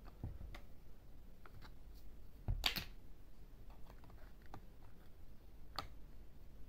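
Scattered small clicks and knocks of a plastic toy screwdriver and plastic toy-truck parts being handled. There is one louder clatter about two and a half seconds in and a sharp click near six seconds.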